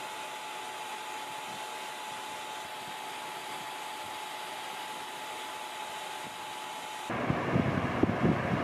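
A steady whirring, fan-like noise with a thin constant whine. About seven seconds in it cuts off abruptly, and a louder, uneven sound with low thumps takes over.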